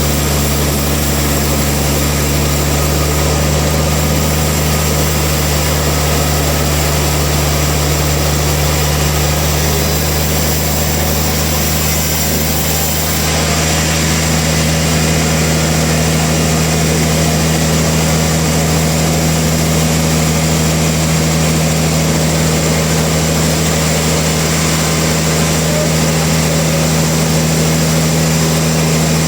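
Sawmill machinery running steadily: a constant low motor or engine drone under a broad hiss, shifting slightly about halfway through.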